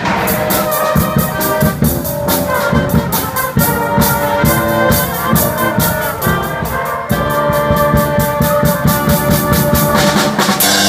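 Pep band playing: sousaphone, saxophones, trombones and trumpets over a drum kit keeping a steady beat.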